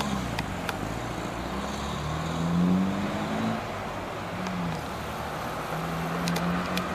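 Trolleybus pulling away round a tight turning loop: its electric traction motor hums and rises in pitch about two seconds in, over street traffic noise, with a few sharp clicks near the end.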